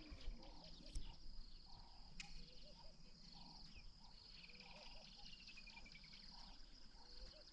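Faint bush ambience: a steady high insect trill with scattered bird calls, including one slow falling whistle near the middle.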